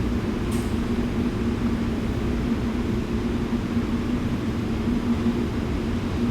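Steady low rumble with a constant droning hum, typical of a jet airliner's engines running on the ground.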